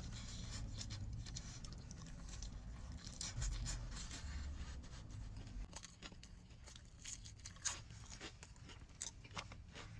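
Faint, scattered clicks, scrapes and rustles from handling a takeout food bowl and its contents, over a low steady room rumble.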